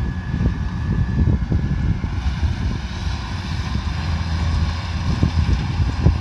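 Kubota combine harvester's diesel engine and threshing machinery running steadily while harvesting rice, with uneven low knocks throughout.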